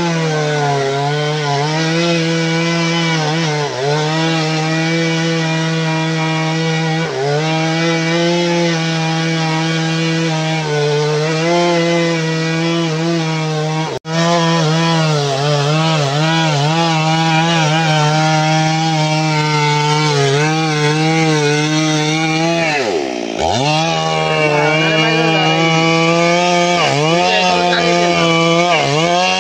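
Two-stroke chainsaw running at high revs while cutting into a felled tree trunk. Its pitch dips several times as the chain bites into the wood and the engine is pulled down, then climbs back.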